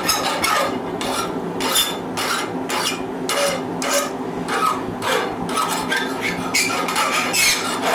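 Hand file rasping across the edges of a forged steel spoon blank in repeated strokes, about two a second, taking the sharp edges off. A steady low hum runs underneath.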